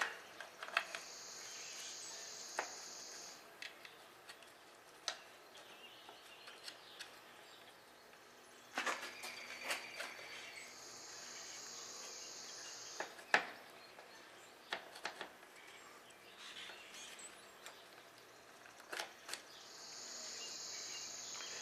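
Scattered light metallic clicks and taps as the linkage parts of a tractor's power director clutch are handled and fitted, a few of them in quick clusters. A steady high buzz comes and goes three times, each time for two to three seconds, about every ten seconds.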